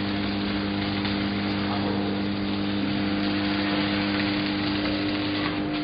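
Shielded metal arc (stick) welding: a steady crackling, sizzling arc over the hum of the welding machine. The arc noise thins out near the end while the machine's hum carries on.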